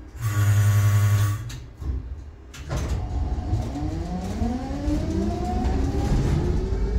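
Tatra T6A2 tram: a loud door-closing warning buzzer sounds for about a second, a clunk follows a second later, then the tram pulls away with the whine of its traction motors and gearing rising steadily in pitch.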